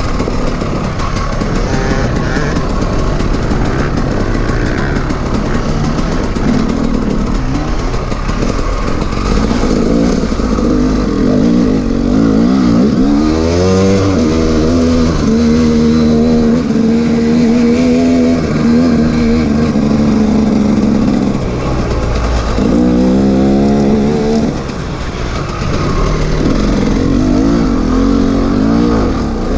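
2011 KTM 300 single-cylinder two-stroke enduro engine being ridden along a trail. It revs up and down with the throttle, climbing sharply in pitch about halfway through and again near the three-quarter mark, and holds a steady pitch in between.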